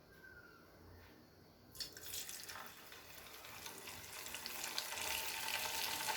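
Cornflour-coated potato pieces frying in hot oil. Quiet at first, then a sizzle with small crackles starts suddenly about two seconds in and keeps getting louder.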